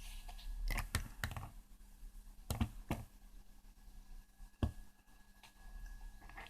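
Hands handling the opened radio cassette recorder's plastic and mechanism parts: about six short clicks and knocks, three close together about a second in, two more around two and a half to three seconds, and one near five seconds, over a faint steady hum.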